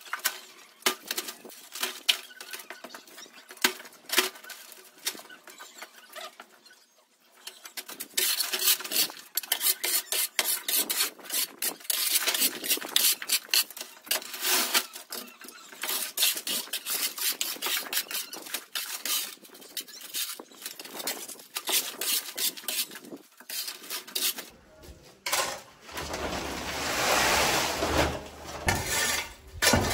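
Busy clinking, scraping and rubbing of hard objects, many small knocks a second, with a steady hiss near the end.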